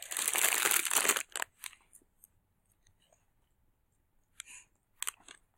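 Lollipop wrapper crinkling and rustling as it is handled, dense for about the first second and a half, then a few short rustles near the end.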